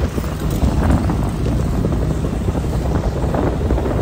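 Motorcycle running while being ridden, mixed with steady low wind rumble buffeting the rider's microphone.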